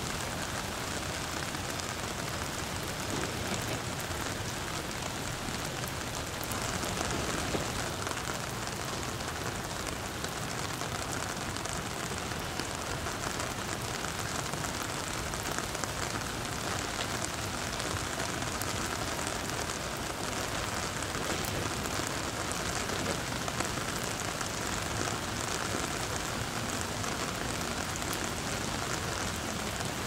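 Steady spring rain falling, a dense, even patter of many drops.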